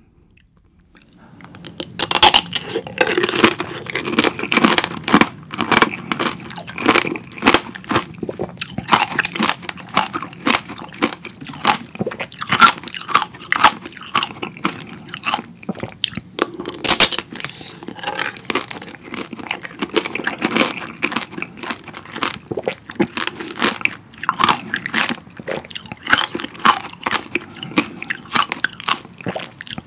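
Close-miked biting and chewing of strawberry tanghulu: the hard candied-sugar shell over fresh strawberries cracks and crunches in dense, irregular sharp strokes. It starts after a brief pause at the beginning and goes on as steady crunching.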